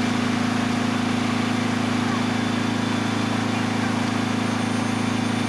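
Fire engine's diesel engine running steadily while it pumps water to the hose streams, a constant low drone under an even rushing hiss.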